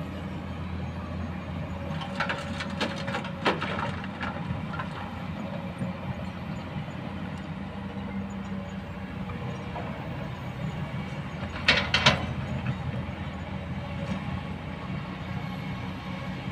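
Kobelco hydraulic excavator's diesel engine running at a steady drone while it works, with a run of sharp clanks and knocks a couple of seconds in and a louder burst of clanks about twelve seconds in.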